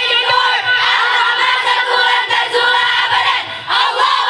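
A group of young women singing a class cheer together in unison, with a brief break shortly before the end.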